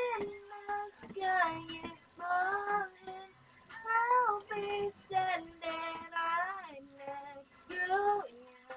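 A high voice singing a melody in short phrases, with held notes that slide between pitches.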